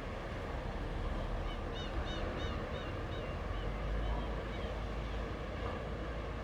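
Sea surf washing in a steady hiss with a low rumble of wind, while a bird calls a quick run of about six short chirps about a second and a half in.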